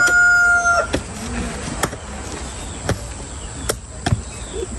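Hand hoes chopping into earth and tree roots as a stump is dug out: about five sharp strikes, roughly one a second. A rooster's crow trails off in the first second.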